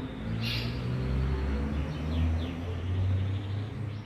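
Low mechanical hum that swells through the middle, with a short sharp click about half a second in and a few bird chirps near the middle.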